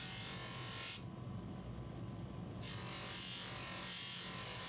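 Steady low hum of a small motor under a hissing, rubbing noise. The hiss cuts out about a second in and comes back about a second and a half later.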